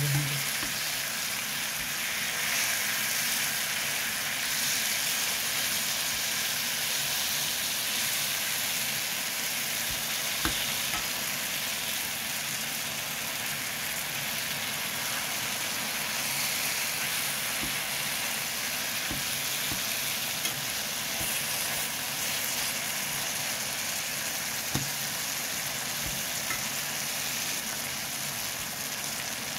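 Whole peeled tomatoes sizzling steadily in hot oil in a frying pan, with a few light clicks of a metal spatula against the pan as they are pressed and turned.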